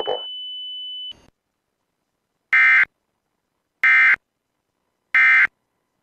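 Emergency Alert System end-of-message data bursts: three short, loud, buzzy screeches about 1.3 s apart. They mark the end of the alert. Before them, a steady high tone stops about a second in.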